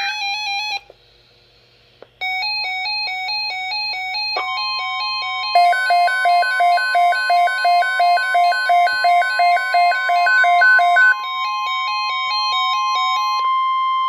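Electronic emergency alert tones. A rapidly stepping, warbling alarm tone starts about two seconds in after a brief gap. About four seconds in it is joined by a steady single alert tone, the NOAA Weather Radio warning tone, held for about ten seconds. Through the middle, pulsing beeps sound about three times a second on top.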